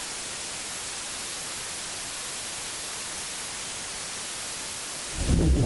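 Steady hiss of television static. Near the end a much louder, low-pitched sound effect cuts in abruptly.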